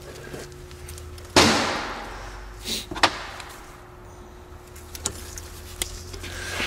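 Sharp metal snaps and clicks from a valve spring and its keepers being worked with a tube-type keeper tool on a V8 cylinder head. The loudest is a sudden crack about a second and a half in, followed by a few lighter clicks; that crack fits half-seated valve keepers letting go so that the parts fly apart.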